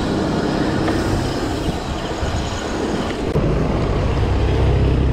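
Road noise from a moving bicycle ride: wind rushing over the microphone with passing traffic. A heavier low rumble sets in about three and a half seconds in.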